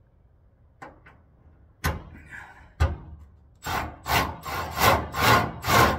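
A few knocks, then a run of loud scraping and rubbing strokes about two a second from halfway in, as a part under the car is shoved and worked into place by hand.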